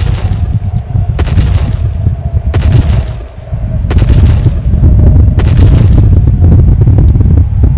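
Heavy booming footsteps of a giant dinosaur, a Tyrannosaurus rex sound effect, one about every second and a half, four in all, over a deep steady rumble. The steps stop about five and a half seconds in.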